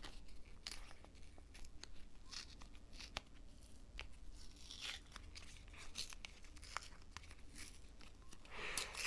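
Fingers picking at and tearing a small foil sticker packet that resists opening, heard as faint crinkling and tearing in short bursts with scattered small clicks; the biggest rip comes near the end.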